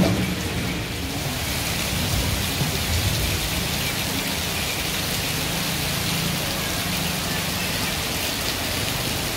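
Heavy rain falling steadily, with a short knock at the very start.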